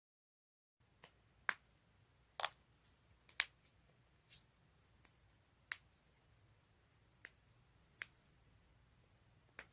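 Joints cracking: a string of about a dozen sharp pops and clicks, irregularly spaced and sometimes in quick pairs, starting after about a second of quiet, with the loudest ones in the first few seconds.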